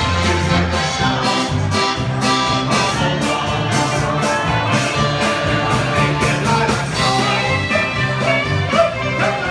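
Instrumental polka band music with a steady beat, no singing.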